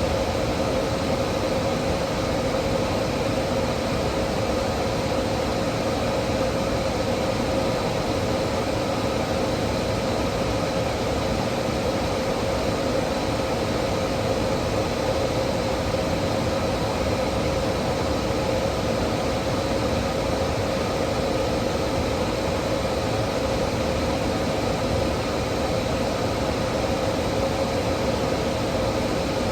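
A steady machine-like hum over hiss, even in level with no breaks, with a constant mid-pitched tone and a fainter high one.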